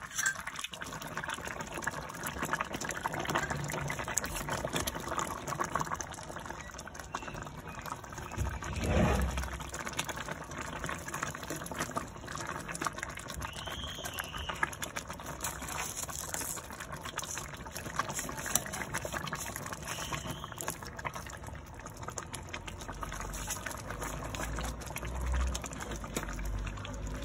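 A pot of chicken soup in red broth boiling, a steady dense bubbling and popping, with one louder swell about nine seconds in.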